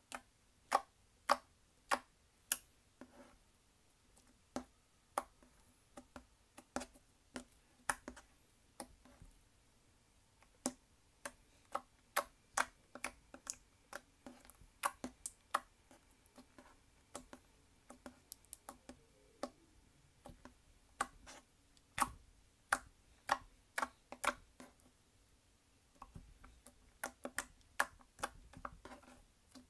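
Clear slime being pressed and folded by hand, giving off a string of sharp clicks and pops at an uneven pace of one to three a second.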